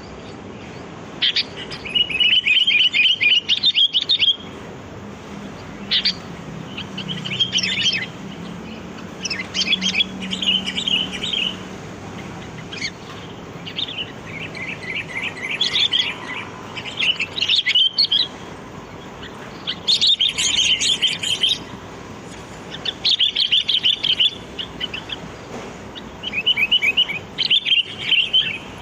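Sooty-headed bulbul song: short, bubbly chattering phrases, repeated every couple of seconds.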